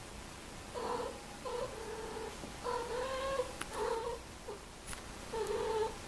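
Domestic cats during courtship, one cat yowling in a string of five or six short, low, drawn-out calls: the caterwauling mating call of cats in heat.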